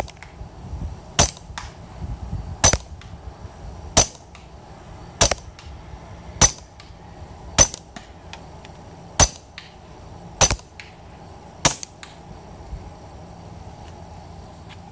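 Browning Buck Mark Field Target .22 LR semi-automatic pistol firing CCI subsonic segmented hollow-points through a Huntertown Guardian SS 22 suppressor: nine short suppressed shots, about one every second and a quarter, stopping about three seconds before the end.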